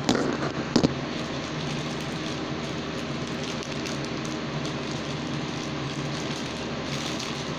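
Two sharp knocks close together at the start, then a steady hum with a hiss.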